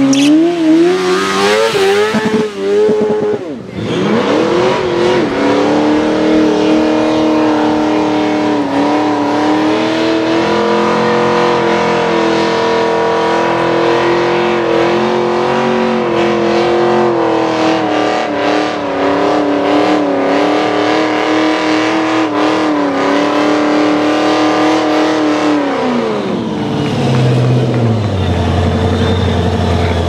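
A sport motorcycle's engine revving up and down during a burnout, then a first-generation Ford Mustang's engine held at high, steady revs through a long burnout with its rear tyres spinning. Near the end the revs fall to a low, steady note as the car pulls away.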